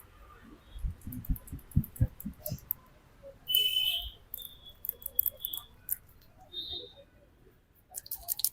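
Hands tapping the head in a barber's head massage: a quick run of about eight dull thumps. About three and a half seconds in comes a short hissy burst with a high whistle-like tone, then a thin high tone.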